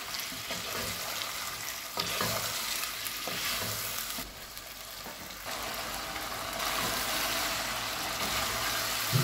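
Boneless chicken pieces sizzling in hot oil in a nonstick pot, turned with a wooden spatula that scrapes and knocks against the pan now and then. The sizzle dips for a moment about four seconds in, then picks up again.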